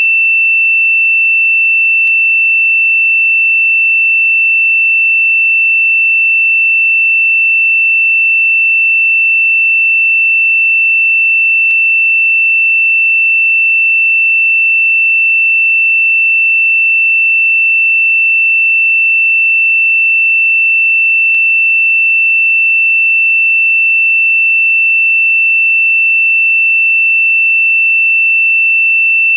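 A single steady, high-pitched pure sine tone held without any change in pitch or loudness: a synthesized meditation frequency tone.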